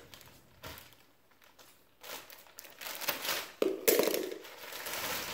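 Clear plastic wrap crinkling and tearing as it is pulled off a new radiator, in uneven bursts, quieter for about a second near the start and busier from about two seconds in.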